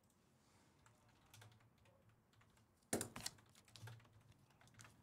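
A few faint computer keyboard keystrokes and clicks, with the loudest short cluster about three seconds in.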